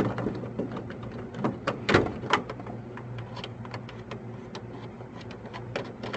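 Scattered light clicks, taps and scrapes of hands working a dashboard switch bezel loose by unscrewing it, with a few louder clicks about two seconds in, over a faint steady low hum.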